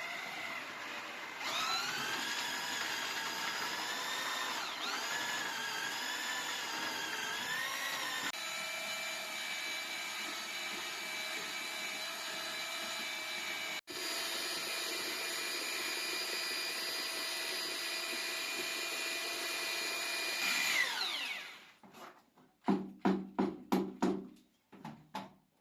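Electric drill with a mixing paddle stirring lumpy tile adhesive. Its pitch wavers under changing load at first, then holds steady. It winds down near the end, followed by a quick series of knocks.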